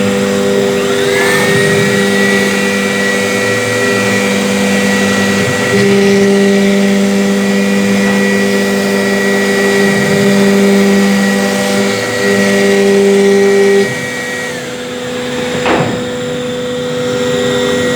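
CNC router running: a high whine rises to a steady pitch about a second in, holds, and falls away near the end, over steady low motor hums that cut in and out every few seconds.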